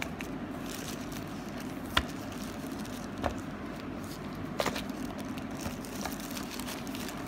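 Handling of a boxed phone being lifted out of its plastic wrap and tissue: faint rustling with a few sharp clicks and taps, the loudest about two seconds in, over a steady low hum.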